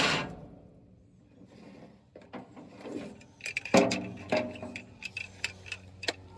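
Scattered clicks and knocks of a phone being handled and moved, over a faint steady low hum. A louder noise dies away right at the start.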